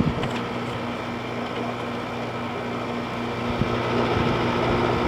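A 2006 General Electric 5,150 BTU window air conditioner running and cooling, its fan blowing and its LG compressor humming steadily.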